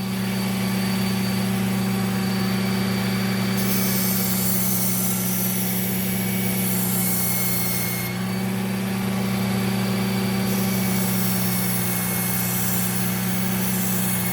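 Slow-speed knife-sharpening machine motor humming steadily while a knife edge is drawn across the running belt or wheel. The contact gives a hiss, in two stretches of a few seconds each, as the burr is worked off the edge.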